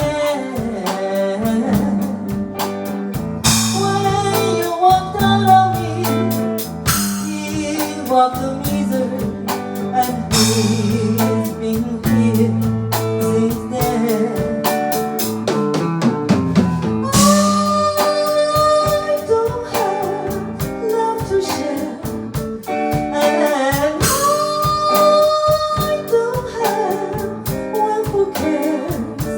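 Music: a slow ballad break with drum kit, guitar and bass under a held melody line that slides up into its notes, with cymbal crashes every few seconds.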